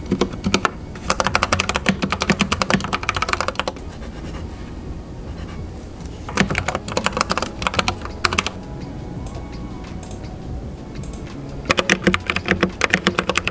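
Typing on a computer keyboard: three runs of fast key clicks with short pauses between them.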